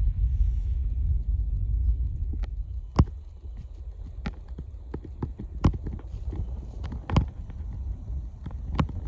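Low rumble of wind on the microphone for the first two seconds or so, then a run of irregular sharp clicks and snaps, about one a second.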